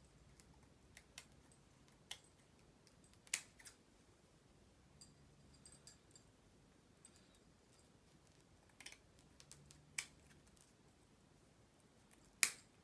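Scissors snipping through a wig cap: faint, sharp snips at irregular intervals, with a louder snip near the end.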